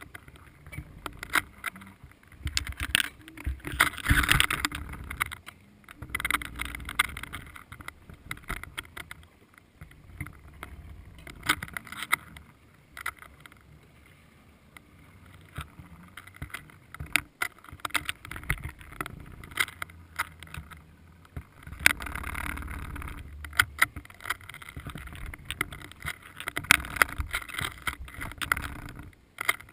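Muffled underwater water noise picked up by a submerged camera, swelling and easing unevenly, with many sharp clicks and knocks from the camera rig and the bait line.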